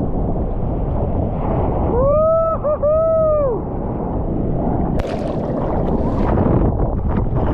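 Ocean water sloshing against a surfboard right by the camera, with a two-part whooping yell about two seconds in. From about five seconds in come sharp, irregular splashes as the board is paddled through the water.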